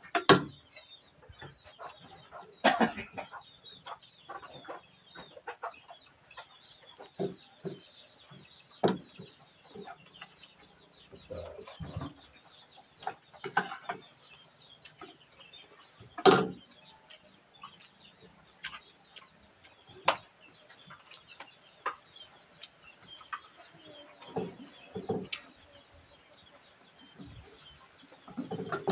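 Chickens clucking, with scattered short clinks and knocks of a spoon on a plate. The loudest is a sharp knock about halfway through.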